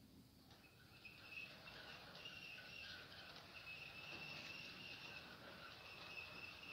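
Faint high-pitched insect trilling that starts about half a second in and runs in stretches with short breaks.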